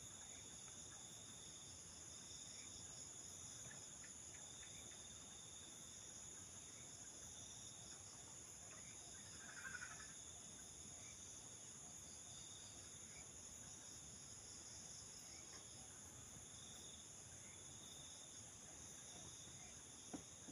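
Faint, steady high-pitched chorus of crickets and other night insects. A brief faint call stands out about halfway through.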